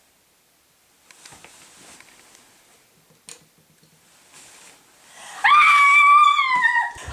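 Soft rustling of bedding, a single click of a bedside lamp switch a little past three seconds in, then a woman's loud, high-pitched scream held for about a second and a half, dropping in pitch as it ends.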